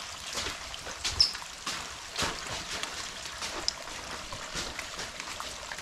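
Heavy rain falling with water running, broken by irregular sharp taps and knocks, the loudest a little over a second and about two seconds in.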